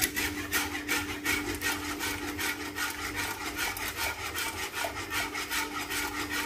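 A utensil scraping and stirring in a bowl in rapid, even strokes, several a second, as condensed milk and thick cream are poured in. A steady low hum runs underneath.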